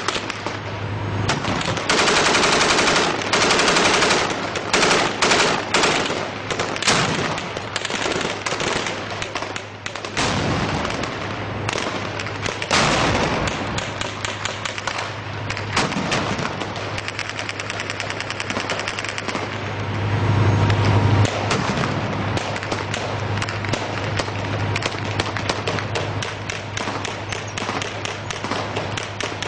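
Repeated bursts of automatic machine-gun fire, some in long rapid strings, over the low steady drone of an armoured vehicle's engine.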